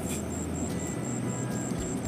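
Background music with a steady beat, a high tick repeating about four times a second.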